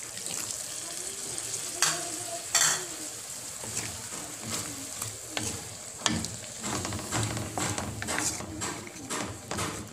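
Water freshly added to a hot wok sizzling and bubbling, with a wooden spatula scraping and knocking against the wok as it is stirred. There are a couple of sharp knocks about two seconds in, and the scraping comes thick and fast in the second half.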